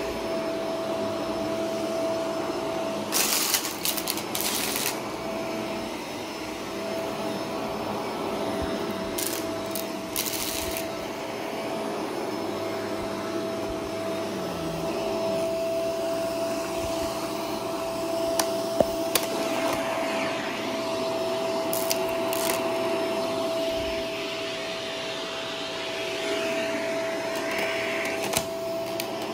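Vacuum cleaner running steadily with a held whine. Several times it gives short crackling rattles as crunchy debris is sucked up, the longest about three seconds in.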